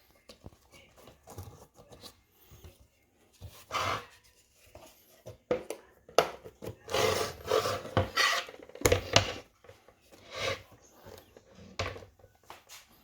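Irregular rubbing and scraping noises in short bursts, busiest past the middle.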